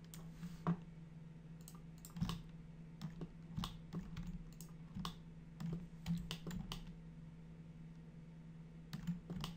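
Computer keyboard and mouse clicks, scattered and irregular, with a cluster of clicks near the middle and another near the end, over a faint steady low hum.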